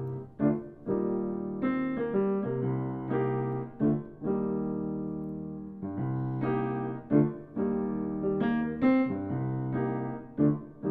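Grand piano playing a solo introduction: chords struck every second or so, each left to ring and fade over sustained low bass notes.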